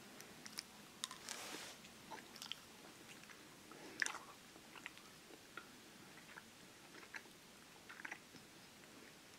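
A person chewing a jelly bean: faint, scattered small clicks of the mouth, the sharpest about four seconds in.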